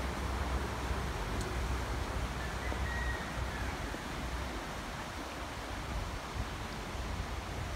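Steady outdoor noise: wind rumbling on the microphone under an even hiss, with a faint brief whistle about three seconds in.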